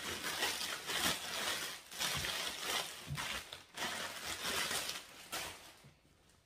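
Rustling of cloth as garments and scarves are lifted, pulled and shuffled through a pile by hand, in uneven swells that die away near the end.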